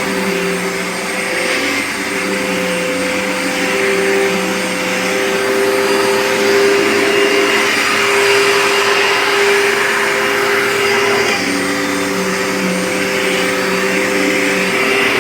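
Dirt Devil Featherlite upright vacuum cleaner running steadily while it cleans carpet, really loud, its motor tones stepping slightly in pitch now and then. It squeaks even though its bearings were just oiled.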